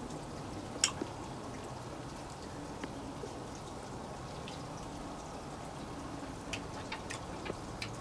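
Light rain falling and dripping as a steady patter, with a sharp click about a second in and a few faint clicks near the end.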